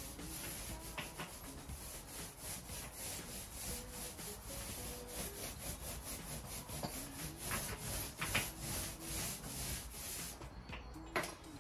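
Paint roller rolling white paint onto a stable wall in quick repeated back-and-forth strokes, a sticky rasping rub. The strokes stop about ten and a half seconds in, and a single sharp knock comes at the very end.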